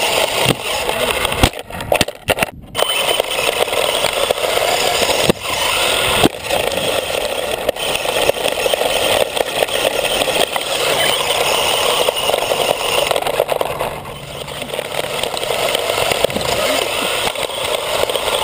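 RC car driving over loose wood chips, heard from on board: a dense, steady rushing crunch of tyres and chassis scraping through the chips, with motor noise. The sound cuts out and knocks a few times about two seconds in.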